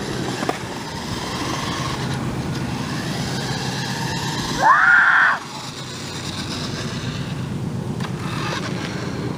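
Radio Shack Dagger RC toy truck's small electric motor and gears running as it drives on asphalt, a steady rumbling whir. About five seconds in comes a loud whine that rises sharply in pitch and then holds for under a second.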